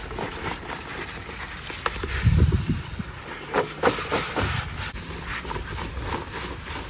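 Rustling and scattered light knocks as harvested potatoes and loose soil are handled, with a short low rumble about two seconds in.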